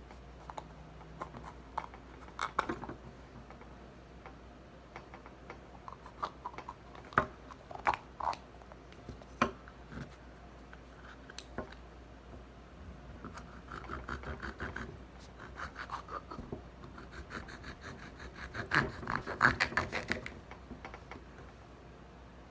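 A rubber bath toy being cut and pried open: irregular scratching, clicks and scraping strokes, with a longer, louder stretch of scraping near the end.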